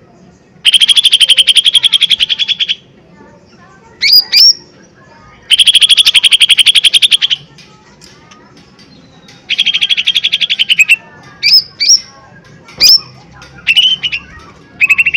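Lesser green leafbird (cucak ijo mini) singing loudly. Three rapid, stuttering trills of about two seconds each alternate with short, sharp upswept whistles: the hard 'tembakan' bursts of a bird in full song.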